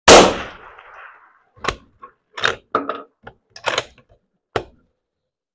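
A single rifle shot from a .308 Winchester bolt-action rifle, echoing and dying away over about a second. Then a quick run of sharp metallic clacks as the bolt is worked: opened, pulled back to eject the spent case, and pushed home again.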